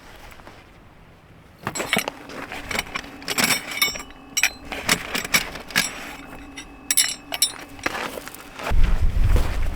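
Small hard objects clinking and clattering as they are handled, with sharp clicks and a few short metallic rings. Near the end, wind buffets the microphone with a low rumble.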